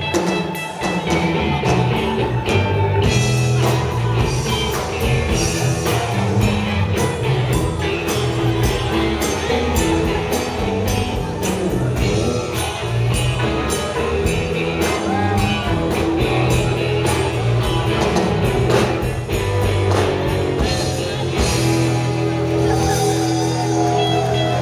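Live rock band playing: amplified electric guitars, bass guitar, keyboard and a drum kit keeping a steady beat. A note slides down near the end.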